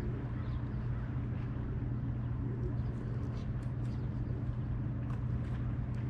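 A steady low engine hum that holds one pitch without rising or falling, with faint light ticks scattered through it.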